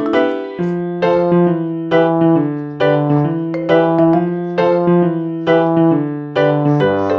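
Background piano music: a gentle melody of struck notes over a steady bass line.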